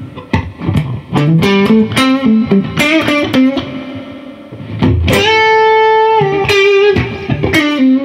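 Electric guitar with a humbucker-sized Alnico V P90 in the neck position, played through a light Klon-style Tumnus overdrive, picking a lead line of single notes with one note held for about a second just past the middle.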